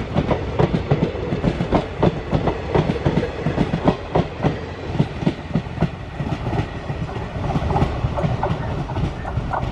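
Passenger train coaches rolling past and away, their wheels clattering over the rail joints above a steady rumble. The clacks come thick at first and thin out as the last coaches draw off.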